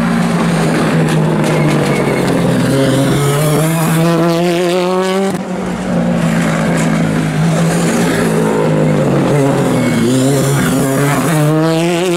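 Ford Fiesta rally car engine at full throttle, its pitch climbing through the revs, dropping sharply on a gear change about five seconds in, then climbing again near the end.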